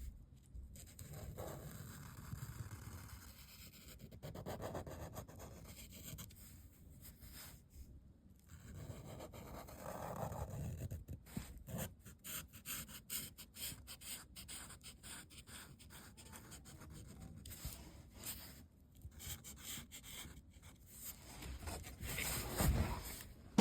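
Faint, irregular scratching and rubbing of a drawing or painting tool on paper, with many small ticks and soft brushing swells.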